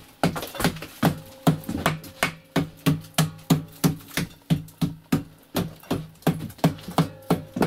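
Hammer striking the plastered brick wall of a masonry stove in steady, even blows, about two or three a second. The stove is being chipped into to open up its hidden flue channel.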